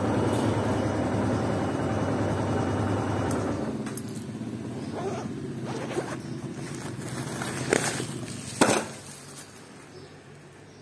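A motorcycle engine running steadily for about the first four seconds, then fading away. After that a plastic shopping bag rustles several times, the loudest rustle coming near the end.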